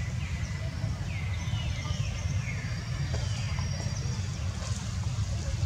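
Outdoor ambience: a steady low rumble with short, high calls that fall in pitch, repeating every second or so, and a few thin high whistles about halfway through.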